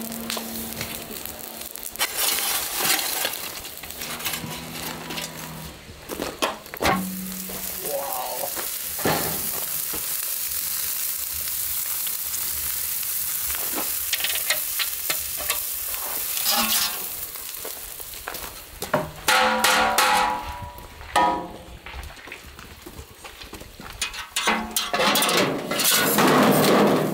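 Wood fire crackling and hissing around a steel barrel roaster as the chicken gets a final blast of heat. Sharp metal clanks with a ringing tail follow about two-thirds of the way through, and a loud clatter comes near the end as the steel barrel and its tools are handled.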